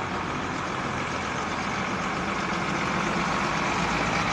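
MTZ-1221 Belarus tractor's six-cylinder diesel engine running steadily as the tractor approaches, growing louder toward the end.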